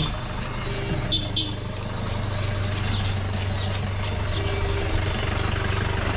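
Vehicle engine running steadily with a low hum, and a thin high whine that comes and goes.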